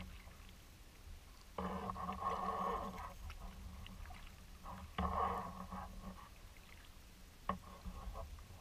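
Kayak paddle strokes: the blade swishing through calm water in two swells a few seconds apart. There is one sharp knock near the end.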